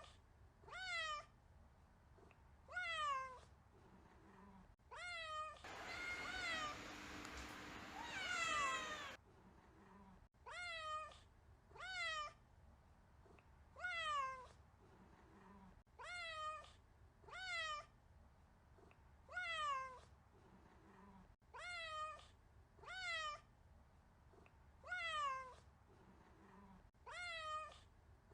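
A kitten meowing over and over, about fifteen short high meows a second or two apart, each rising and then falling in pitch. A few seconds of hiss sit under the meows around a quarter of the way in.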